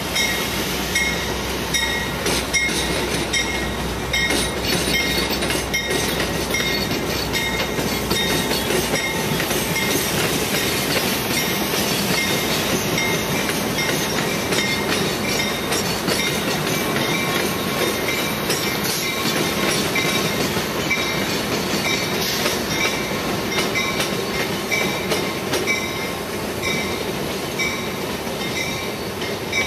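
Amtrak passenger train of Superliner cars behind a P42 diesel locomotive rolling slowly through a rail yard. Steel wheels clack over switches and rail joints, and a high wheel squeal comes in short, regularly spaced pulses.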